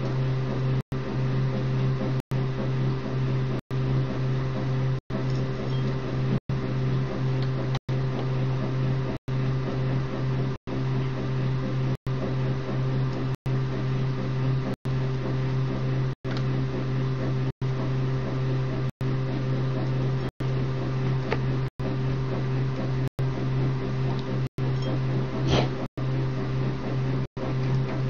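A steady low mechanical hum, like an appliance or motor running, that cuts out for an instant about every second and a half. A single sharp click comes about 25 seconds in.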